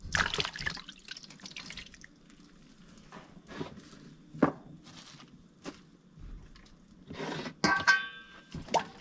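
Raw chicken being washed by hand in a stainless steel bowl of water: scattered drips, splashes and small knocks against the bowl, with a louder splash at the start and another a couple of seconds before the end. A brief high chirp sounds near the end.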